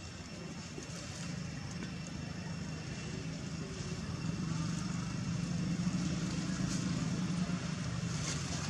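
Low, steady engine hum that grows gradually louder, with faint steady high-pitched tones above it.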